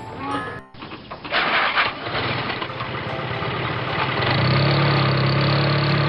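Vehicle engine starting up and then running, settling into a steady low hum about four and a half seconds in.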